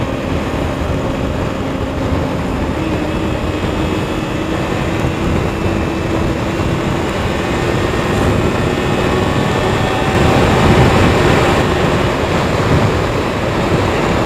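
Kawasaki Ninja 300's parallel-twin engine running under way beneath heavy wind rush on the helmet microphone. The engine note climbs slowly as the bike gathers speed, and the wind gets louder about ten seconds in.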